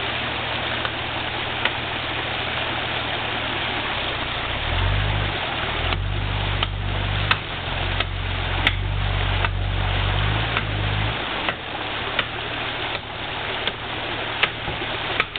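Off-road 4x4's engine idling, then revving up and held higher for about six seconds before dropping back to idle, under a steady hiss. From the middle on, a run of sharp knocks comes about once every 0.7 seconds.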